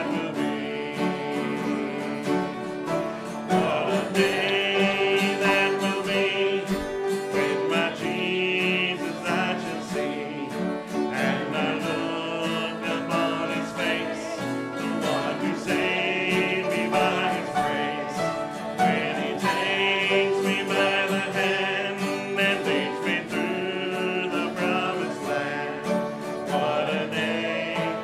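A hymn sung to strummed acoustic guitar and piano. The voices and instruments run on without a break.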